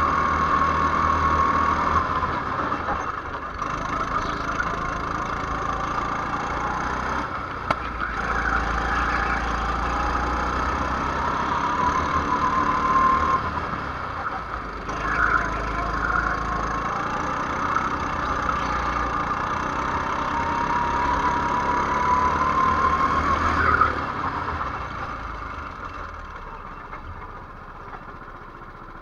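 Go-kart engine heard onboard, its pitch rising and falling over and over as the driver accelerates out of corners and lifts off into them. Near the end the engine note drops and fades as the kart slows.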